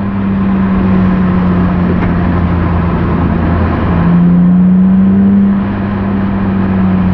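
BMW E36 M3 straight-six with its newly installed exhaust, heard from inside the cabin while cruising. About four seconds in the engine note steps down, then climbs and runs louder under throttle for a moment before easing back.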